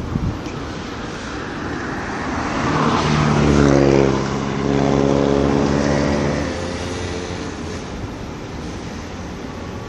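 A heavy truck passing close by: its tyre and engine noise swells to a peak about four seconds in, with a steady engine drone, then fades away.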